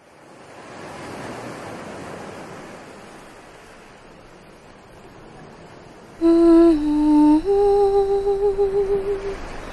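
Ocean surf washing on a beach as a steady hiss. About six seconds in, a loud singing voice enters, holding three long notes: a step down, then up to a higher note with vibrato.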